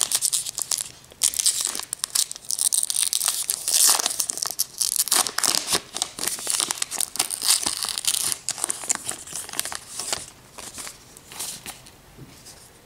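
Paper wrapper of a 2018 Topps Gypsy Queen baseball card pack being torn open and crinkled in the hands. The crackling dies down after about ten seconds into soft scattered clicks as the stack of cards is slid out.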